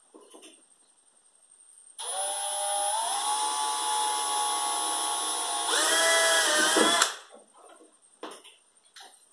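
Cordless drill driving a self-drilling screw through a plastic tub's base into an aluminium bar. The motor starts about two seconds in and runs steadily, its pitch shifting twice, then stops abruptly about five seconds later. A couple of light knocks follow.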